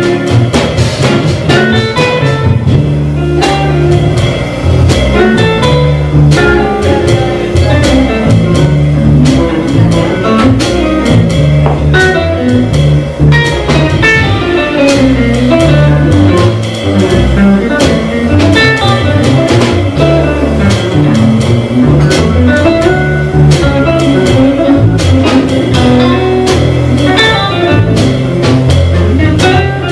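Live jazz trio of guitar, upright double bass and drum kit playing a blues, with a constant run of changing bass notes under the guitar line and drum strokes throughout.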